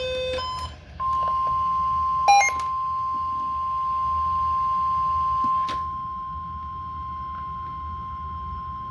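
A short run of alternating two-pitch beeps, then from about a second in the steady 1050 Hz NOAA Weather Radio warning alarm tone, held unbroken, with a brief cluster of beeps over it at about two seconds. The long tone signals that a warning, here a special marine warning, is about to be read.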